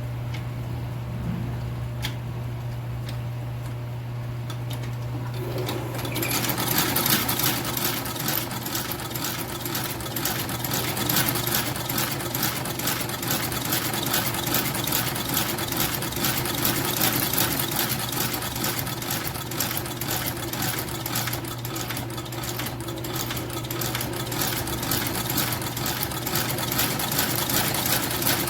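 Shoe-repair sewing machine stitching a new leather half sole: a steady low hum, then about six seconds in the machine starts running with a fast, even clatter of needle strokes that carries on.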